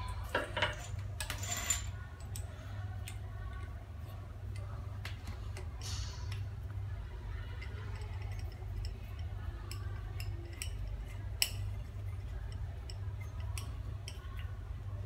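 Scattered light clicks and knocks of a water hose and its fittings being handled and connected, the sharpest about eleven seconds in, over a steady low hum.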